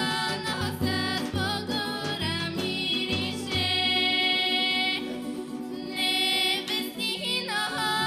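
Bulgarian folk music from a live band: a melody with long held notes over steady low beats of a tapan drum.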